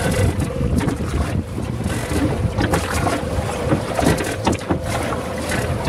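Wind buffeting the microphone over open water as a wooden four-oar rowing cutter is rowed along, with repeated knocks and clicks of the oars working in their rowlocks.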